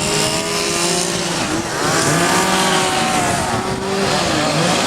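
Several chainsaws running at once, their engines revving up and down in overlapping pitches as carvers work wood.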